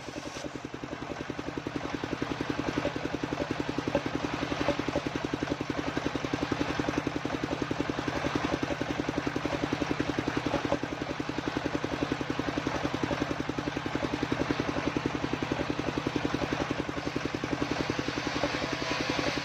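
Home-built circular saw rig at a wood-sawing setup, its engine running steadily with a rapid, even pulse and no break.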